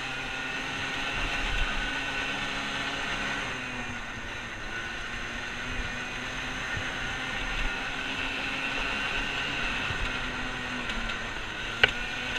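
Dirt bike engine running at steady riding speed, its note wavering slightly with throttle, with wind rumbling on the microphone. A single sharp click sounds near the end.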